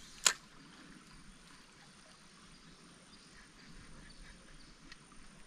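One sharp click or knock about a quarter second in, the loudest thing by far. After it comes faint background hiss with a few small scattered ticks.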